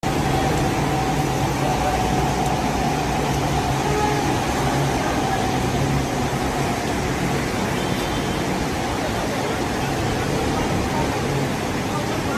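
Steady hiss of heavy rain, with faint voices behind it.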